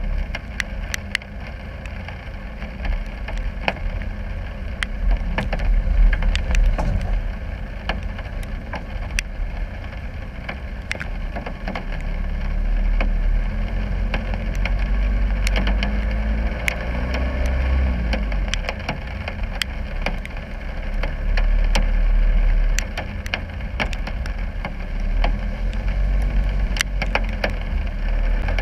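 Land Rover Discovery's 300 Tdi four-cylinder turbodiesel running at low revs as the 4x4 crawls through mud and over rocks, the revs rising and falling around the middle. A scatter of sharp clicks and knocks runs over the engine throughout.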